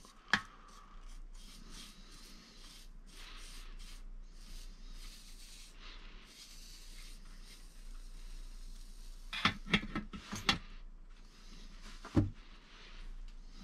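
Quiet rubbing and handling of freshly soldered wires and connectors on a workbench. A few sharp clicks and taps come about nine and a half to ten and a half seconds in, and one more at about twelve seconds.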